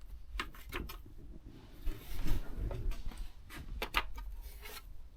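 Handling noise of small motorcycle fairing fixings (bolts and washers): a few sharp clicks and knocks, with a louder rustle about two seconds in.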